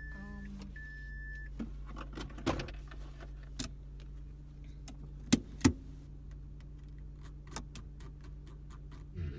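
Car warning chime beeping in short on-off pulses over the steady low hum of the idling engine inside the cabin, stopping about a second and a half in. Then clicks, knocks and small rattles of things being handled in the driver's seat, with two sharp knocks a little past halfway.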